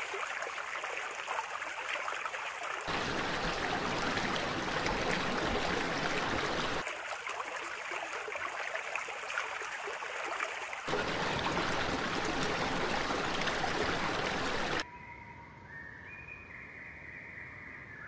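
Running water, like a stream, as a steady rushing hiss that switches abruptly every few seconds between a thin, high version and a fuller, deeper one. About fifteen seconds in it drops away to a quieter background with held, whistle-like high tones.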